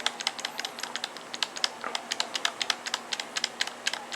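Computer keyboard key being tapped rapidly and repeatedly, about seven quick clicks a second: the Delete key is hammered during boot to get into the BIOS setup.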